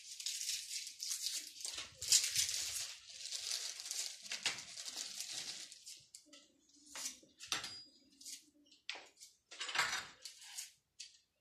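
Plastic bag of rye bread rustling and crinkling as it is handled and opened. From about six seconds in, scattered short knife taps and knocks on a wooden cutting board as the bread is cut.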